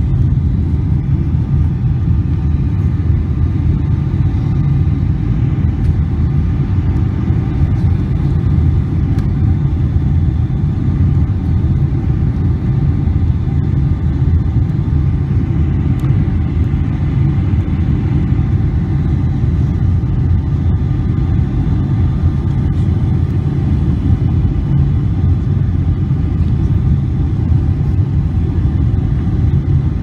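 Jet airliner cabin noise during the descent to landing: a steady low rumble of the engines and the airflow over the fuselage, with a few faint steady tones above it.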